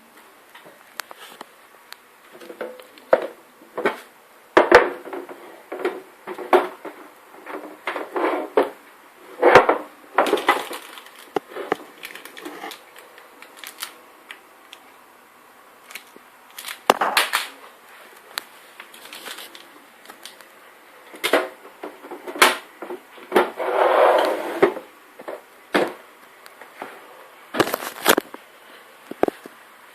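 Irregular knocks, clicks and clatter of hard objects, with a couple of longer rattling bursts about ten seconds in and again near twenty-four seconds.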